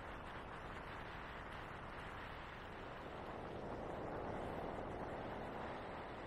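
Steady road and wind noise of a car driving along a highway, swelling slightly a little past the middle.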